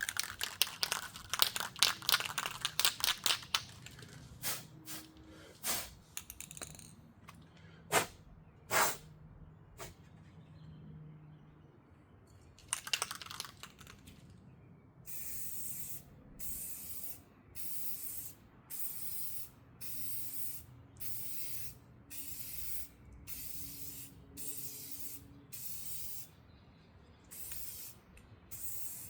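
Aerosol can of clear gloss lacquer: first a fast rattle of sharp clicks, the can being shaken with its mixing ball knocking inside, then sprayed in short hisses under a second long, repeated about once a second through the second half.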